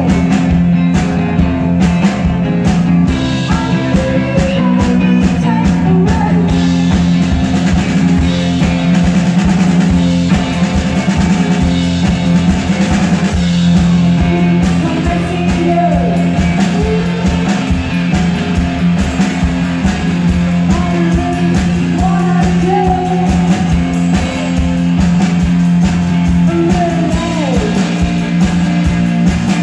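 Live rock duo playing loudly: an electric guitar and a drum kit keep a steady beat, and a woman sings over them.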